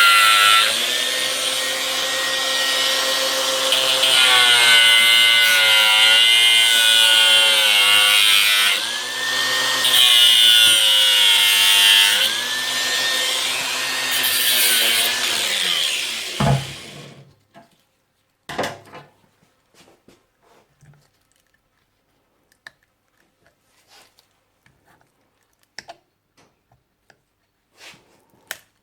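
Power tool cutting into the plastic case of a lead-acid car battery around the positive terminal, its motor pitch dipping several times under load and recovering. It stops about seventeen seconds in, followed by faint handling clicks.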